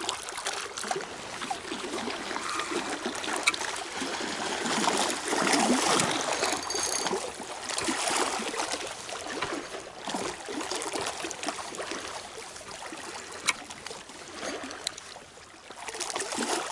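Small waves lapping and splashing at the reservoir shore: a continuous, unevenly swelling wash of water, with a couple of sharp clicks about three and a half seconds in and near the end.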